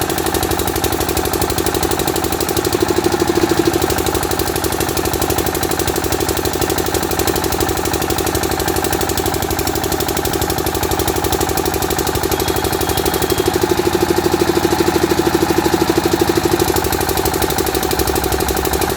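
The 12 HP engine of a 7.5 kVA generator running steadily with a rapid, even beat. It swells a little louder twice: about three seconds in, and again for a few seconds near the three-quarter mark.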